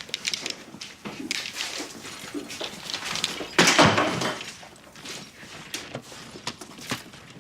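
Scattered knocks and clatters, with one loud slam-like crash about three and a half seconds in.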